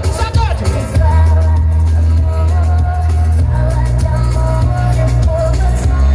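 Loud electronic dance music blasting from a Pará aparelhagem party sound system: deep held bass notes that change a couple of times, a melody line on top and a steady drum beat.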